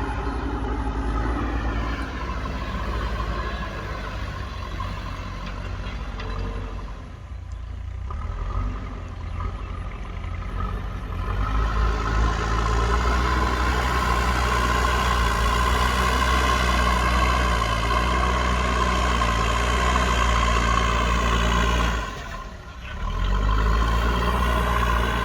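JCB backhoe loader's diesel engine running while it pushes and levels soil, working harder from about twelve seconds in. Its sound briefly drops twice, once about a third of the way through and once near the end.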